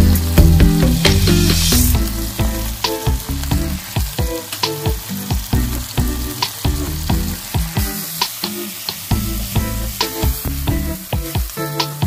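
Onion-tomato masala sizzling in mustard oil in a metal kadhai, with light clicks of a steel slotted spoon against the pan. Instrumental background music plays throughout.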